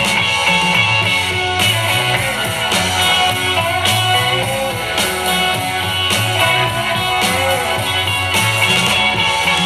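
Guitar-led rock music with a steady bass pulse, played on a Bose SoundLink Micro Bluetooth speaker as a sound test.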